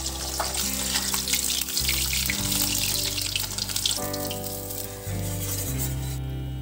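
Fish pieces sizzling and crackling as they fry in hot oil in a metal kadai, a dense hiss with many fine pops that dies down near the end. Background music with slow, steady notes plays underneath.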